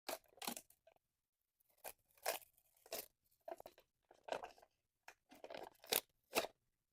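Slime being mixed, giving a string of short, irregular squishing noises with a brief pause about a second in.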